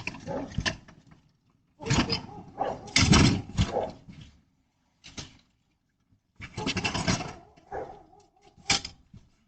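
A dog barking in irregular bursts, heard through a doorbell camera's microphone.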